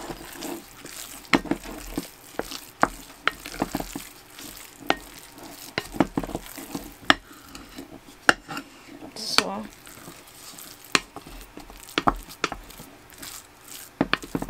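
Wooden spoon mixing seasoned ground-pork longanisa mixture in a bowl, with irregular taps and scrapes of the spoon against the bowl.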